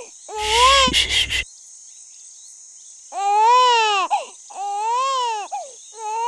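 Baby crying in wails that rise and fall in pitch: a short wail with a noisy rush under it near the start, then after a pause, three long wails one after another.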